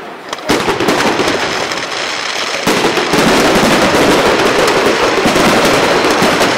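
Fireworks display: aerial shells bursting with dense crackling. It begins sharply about half a second in and thickens into a continuous run of rapid pops about a third of the way through.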